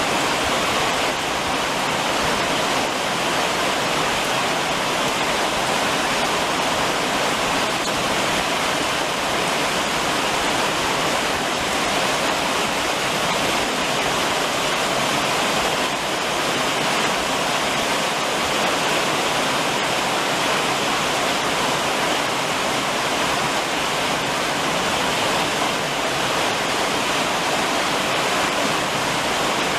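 Summer rain drumming on a roof, a steady, even patter without breaks.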